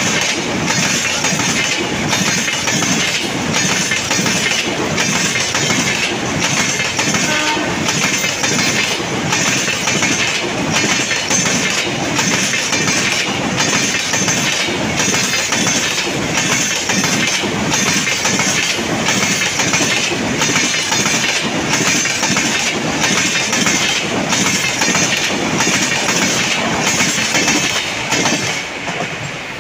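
A Rajdhani Express passenger train passing close at speed: a loud, steady rush of wheels on rail with a regular clickety-clack as the coaches' wheels cross the rail joints. The sound falls away just before the end as the train clears.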